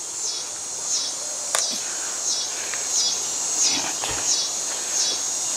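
Insect chirping outdoors: a steady run of high, short chirps about every two-thirds of a second. A single light click sounds about a second and a half in.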